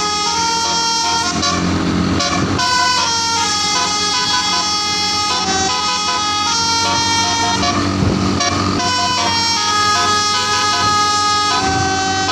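Basuri telolet horn on a tour bus playing a long melody of stepping, held notes, sounded continuously, with the bus's engine running underneath.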